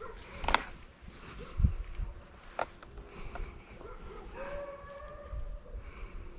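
Deer hounds baying in long drawn-out howls, typical of dogs running a deer's trail on a drive. Two sharp clicks and a low thump about one and a half seconds in.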